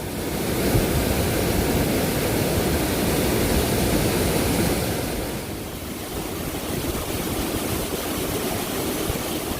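Steady rushing water of a waterfall, an even, dense noise that eases slightly about halfway through.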